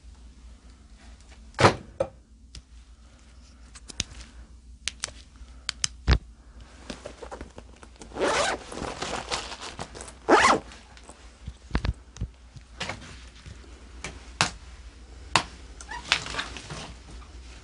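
Rustling and scattered knocks and clicks of someone moving and handling things close to the microphone, with longer scraping rustles about eight and ten seconds in.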